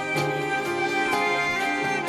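Instrumental introduction to a sung hymn: a slow melody of sustained notes, changing about every half second, over a held accompaniment.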